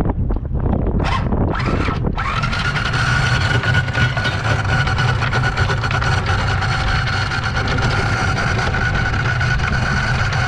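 Electric anchor windlass running as the anchor goes down. A steady motor whine over a low hum starts about two seconds in, after a few short knocks. The windlass is working again after salt on its electrical connectors was treated with Vaseline.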